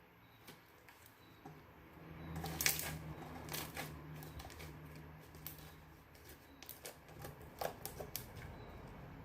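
Slime being squeezed and poked by hand, giving a run of small sharp clicks and crackles that starts about two and a half seconds in and comes in uneven clusters.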